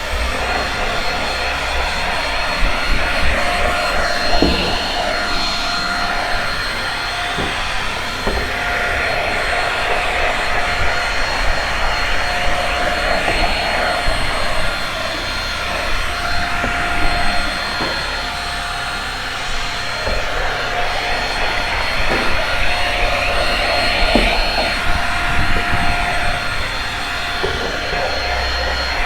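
Shark Rocket stick vacuum running steadily: a constant motor whine with a hiss of suction that swells and fades as the head is worked over carpet, with a few short knocks.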